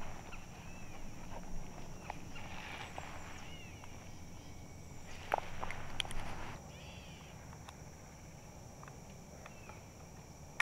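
Birds calling in short repeated chirps over a steady high hiss, with two stretches of rustling in dry brush, about two and a half and five seconds in.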